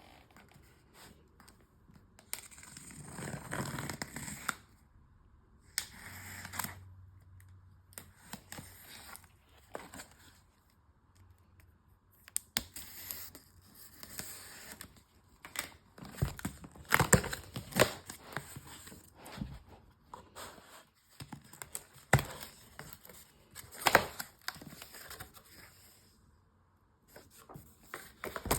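Packaging being torn open and crinkled by hand, in irregular bursts, with sharp clicks and taps in between.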